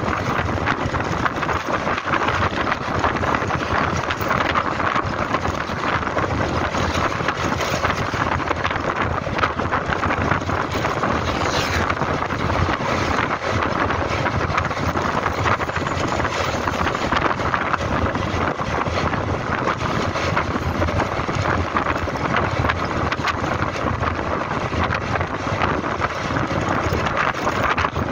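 Steady wind rush over the microphone of a motor scooter riding along a road, with the scooter's running and road noise beneath it.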